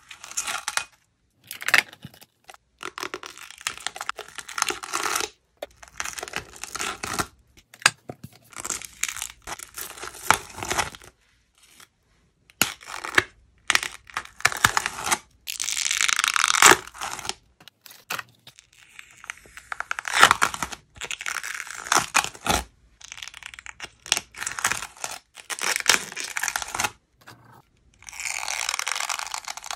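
Thin dried films of clear glitter slime being peeled off plastic, metal and glass containers with tweezers. The films make crackly tearing sounds in repeated spells of one to a few seconds, with short pauses between them.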